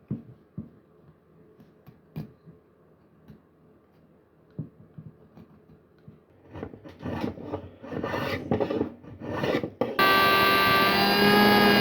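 A few light knocks of a wooden hand plane body being handled, then quick rasping strokes of a rasp on the wood as rough shaping begins. About ten seconds in, a loud steady humming sound with a fixed pitch starts.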